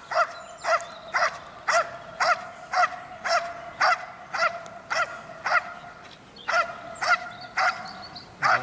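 A Belgian Malinois barks steadily and rhythmically, about two barks a second, at a man standing still in front of it, in the hold-and-bark of a protection-dog exercise. A thin, steady whine runs on between the barks.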